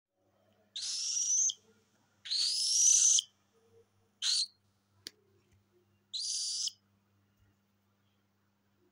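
Young cockatiel giving four separate rising, raspy calls, the second the longest and loudest, with a single sharp click about midway.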